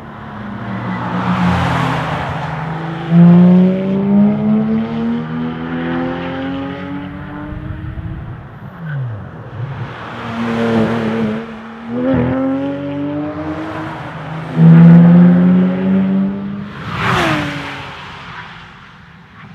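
Porsche 997 GT3 RS 4.0 naturally aspirated flat-six engines accelerating hard and driving past in several passes. The pitch climbs as they rev, then drops as each car goes by. It is loudest about three and fifteen seconds in.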